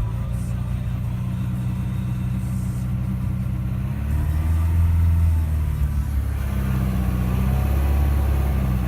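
Audi A4 2.0 TDI common-rail four-cylinder diesel (CAGA) idling roughly and surging: the engine note rises and falls about four seconds in, then picks up again near the end. The owner traced the vibration and surging to a failing fuel pressure regulator valve at the end of the common rail.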